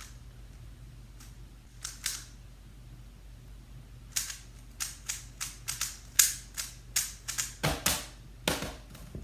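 Sharp plastic clicks and clacks of a twisty puzzle being turned by hand, a few scattered at first, then a quick irregular run of about fifteen turns in the second half.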